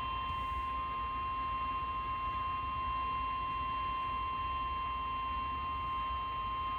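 Emergency Alert System attention signal over broadcast radio: a single steady electronic tone, held unbroken, signalling that a flash flood warning is about to be read.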